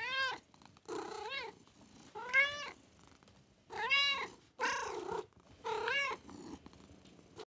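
A cat meowing six times, each meow rising and falling in pitch, about a second apart.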